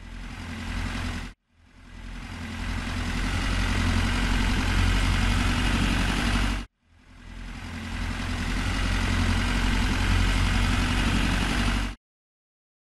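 Tractor engine running steadily with a deep hum, heard as three separate pieces. Each swells up and then cuts off abruptly: just over a second in, again past six and a half seconds, and near the end.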